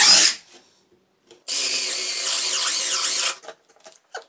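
Parkside Performance 12V brushless cordless drill running on a nearly exhausted 4 Ah battery, drilling in two short bursts: one ending just after the start, then a longer one of about two seconds from about a second and a half in, each cutting off sharply as the battery gives out.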